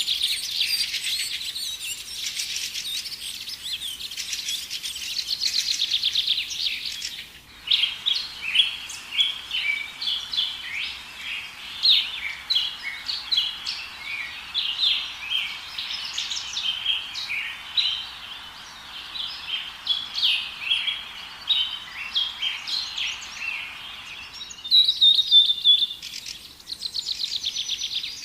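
Small songbirds chirping: fast twittering trills at first, then many short separate chirps from about 7 seconds in, and fast trills again near the end. The sound changes abruptly at those two points.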